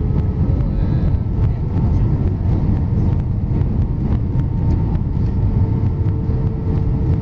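Steady cabin rumble of an Airbus A319 on approach with its flaps extended: engine and airflow noise heard through the cabin over the wing, deep and even, with a few faint steady engine tones above it.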